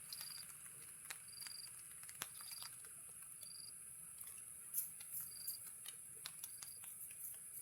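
Faint outdoor ambience: short high chirps roughly once a second over a steady high-pitched hiss, with scattered light clicks.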